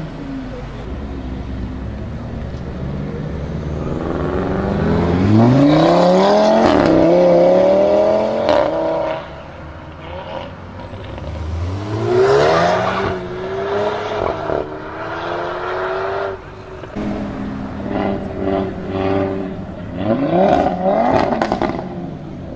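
Audi RS3 Sportback's tuned turbocharged five-cylinder with a loud Milltek exhaust, rumbling low and then pulling away hard about four seconds in, the revs climbing through a gear change. More hard accelerations follow, a rising run of revs midway and another near the end.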